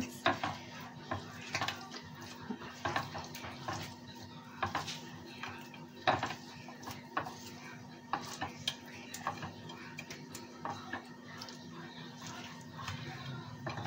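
Irregular light clicks and taps of raw fish being handled and moved around on a ceramic plate, over a faint steady hum.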